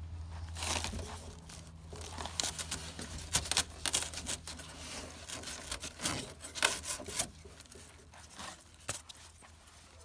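Foam ICF block being cut and worked by hand, giving irregular crunching and tearing strokes as a hole is made for a pipe.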